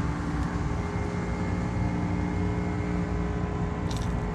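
A steady engine drone with an even hum, with a few faint clicks about four seconds in.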